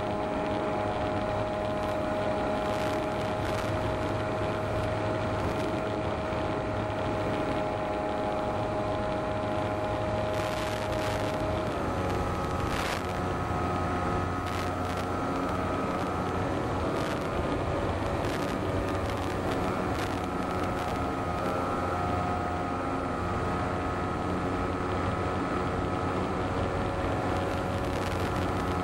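Electric motor and propeller of a small RC plane running steadily in flight, a constant whine over wind rush. The whine dips slightly in pitch about twelve seconds in as the throttle is eased back.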